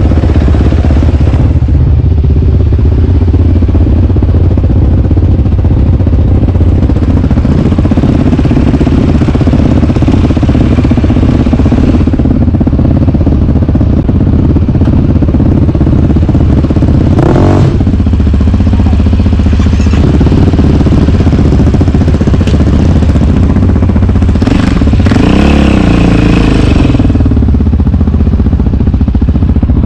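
Single-cylinder four-stroke sport ATV engine running loudly under way, with short bursts of revving rising and falling once around the middle and again a little past three-quarters through.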